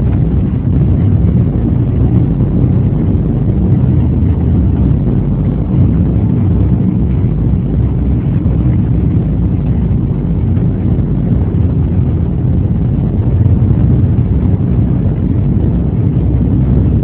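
Steady low rumble of a car's engine and road noise, heard from inside the cabin of a moving car.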